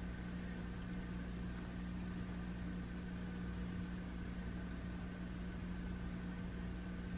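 Steady mechanical hum with a low drone and a fainter, higher whine above it, unchanging throughout: the background noise of a room appliance or fan.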